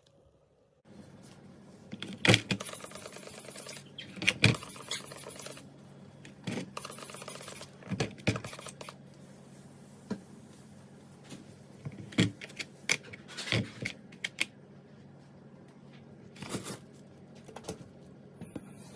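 Irregular sharp clicks and knocks, a dozen or so spread across the stretch, from hard parts being handled, over a steady low hum.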